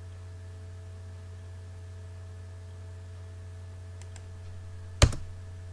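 Steady low electrical hum with faint steady whine tones above it. A few faint clicks come near 4 s, then a sharp, loud double click of computer keys about five seconds in.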